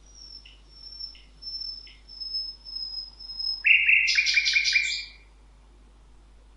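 Birds calling: a series of thin, high whistled notes with a few short lower chips, then about four seconds in a loud, harsh chattering burst of rapid notes lasting around a second.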